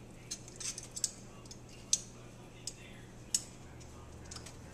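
Metal kitchen tongs clicking as ribs are lifted from a foil pan onto a plate: about eight short, sharp clicks at uneven intervals, over a low steady hum.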